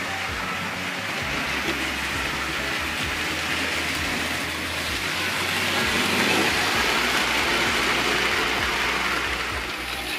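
Märklin HO model trains running on metal track: a steady rolling and motor whir, louder for a few seconds around the middle as a train passes close by.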